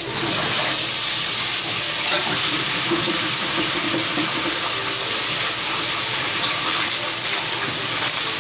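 A batch of fries sizzling hard in a deep fryer's hot oil: a loud, steady hiss that starts sharply as the fries go in.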